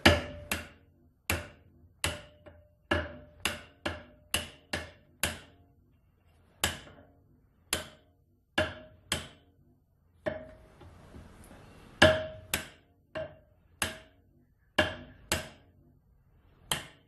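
Hammer blows driving a lathe-turned metal part onto the handle of a folding camp shovel as a tight knock-on fit. About two dozen sharp strikes come in uneven runs with short pauses, several leaving a brief metallic ring.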